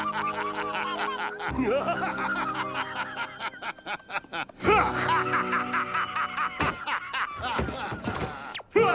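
A cartoon character's long, cackling laugh, in rapid repeated pulses, over background music.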